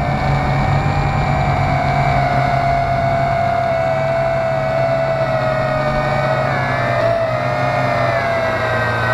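Tarantula quadcopter's electric motors and propellers whining in flight, heard from its onboard camera, with a steady low hum and rushing wind. The pitch wavers and dips a little about two-thirds of the way in.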